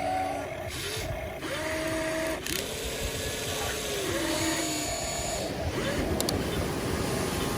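Small electric gear motors of a toy RC excavator whining. Several whines overlap, each rising, holding and falling in pitch as the machine's parts move.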